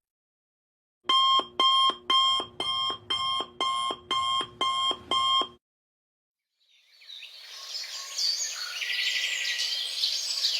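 Digital alarm clock beeping: about ten short, evenly spaced electronic beeps, a little over two a second, then stopping. After a pause, a hiss with high chirping fades in and grows louder.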